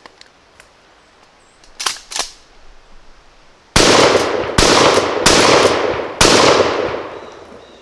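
Four shotgun shots fired in quick succession, under a second apart, each sharp report ringing out in echo after it. They are preceded by two short snaps about two seconds in.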